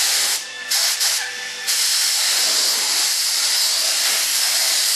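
Compressed-air spray gun hissing as it lays a light first coat of Partall PVA release film onto a waxed plug: a few short bursts in the first second and a half, then a steady hiss.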